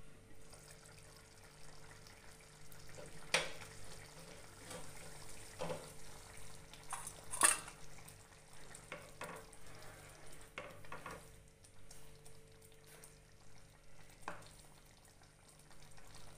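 A ladle stirring simmering mushroom curry gravy in a nonstick kadhai, with scattered clicks and knocks against the pan, the loudest about seven and a half seconds in, over a faint bubbling of the gravy.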